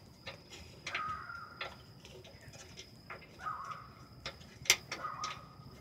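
Hand tools and metal parts at a vehicle's in-line fuel filter fitting: irregular metal clicks, the loudest a little before the end, with three short squeaks of metal rubbing.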